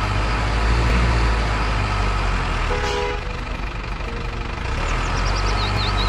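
Steady, loud low engine rumble of a truck, with a short horn toot about three seconds in and quick high bird chirps near the end.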